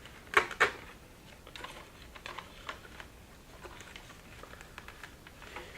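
Hands working at a stuffed toy bird, pulling at its glued-on parts: scattered light clicks and rustling, with two sharper clicks near the start.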